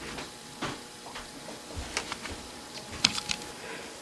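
Faint handling noise of small machined metal parts being moved and set down: a few light clicks and taps, the sharpest cluster about three seconds in.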